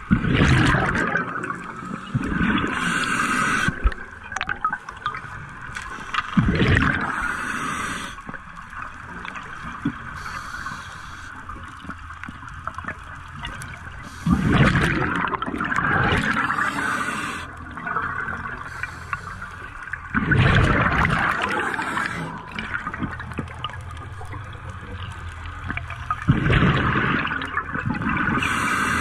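Scuba diver breathing through a regulator underwater: a hiss on each inhale and a gurgling rush of exhaled bubbles, repeating about every six to eight seconds, five breaths in all.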